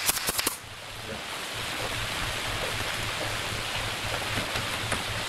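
A quick run of four or five sharp clicks in the first half second, then a steady hiss of background noise with a faint low hum.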